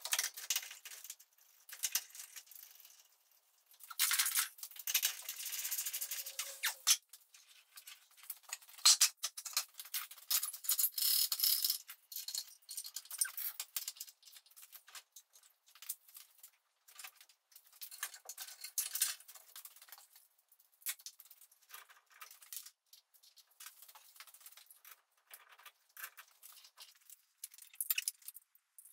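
Rapid metallic clicking and rattling from metal parts and tools being handled around an engine hung on a hoist, louder for a few seconds about four seconds in and again around nine to twelve seconds in.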